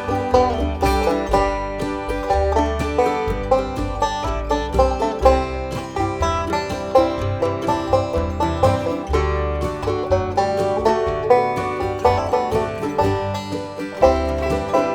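Instrumental break of a bluegrass-style acoustic song: banjo, mandolin and bass playing, with a quick run of plucked notes over steady bass notes.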